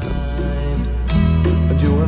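Music: held bass notes that change about a second in and again near the end, with sustained chords and a moving melody over them.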